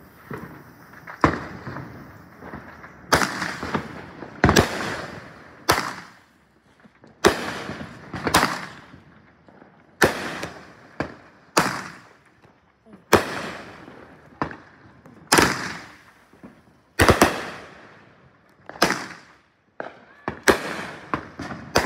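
Consumer aerial firework cake firing shot after shot, with a sharp bang every second or two, each followed by a brief echoing tail.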